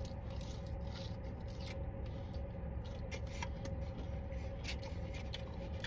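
Steady low hum of a car cabin with a faint steady tone, overlaid by scattered small clicks and rustles of fries being eaten from a paper tray.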